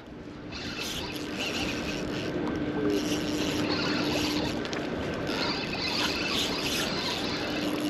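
Lake water sloshing against a concrete pier wall, with wind noise on the microphone, as a steady wash.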